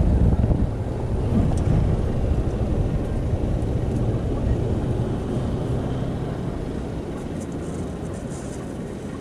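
Boat under way at trolling speed: the steady low rumble of twin Suzuki 200 outboard motors with wind and water noise, gradually getting quieter in the second half.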